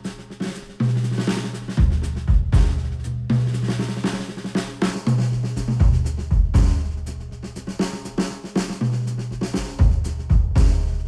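Music with a driving drum kit (kick, snare, hi-hat) over held bass notes, played back through headphones and picked up by microphones placed at the ear cups.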